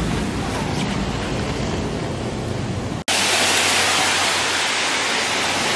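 Steady rushing noise of wind and rain with a strong low rumble. About three seconds in it cuts sharply to a brighter, steady hiss of rain on a wet street.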